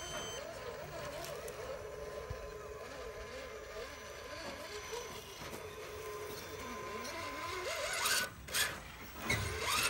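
RC rock crawler's electric motor and gear drive whining, the pitch rising and falling as the throttle is worked while it climbs over rusty car body metal. Two short rushing noises come near the end.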